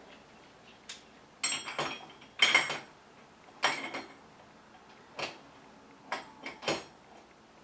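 Short metal clicks and clinks, about seven of them spread over several seconds, as an oxygen regulator is fitted onto an oxygen cylinder's valve and its two index pins are lined up with the holes in the valve (pin index system).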